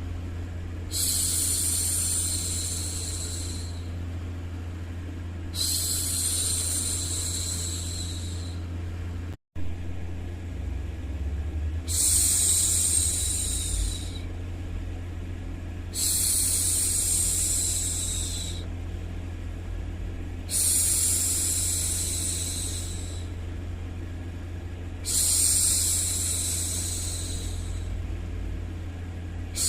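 A woman's voice shushing 'shhh' to hush a baby, repeated six times, each shush lasting about two seconds and coming every four to five seconds, over a steady low white-noise rumble. The sound cuts out for an instant about nine seconds in.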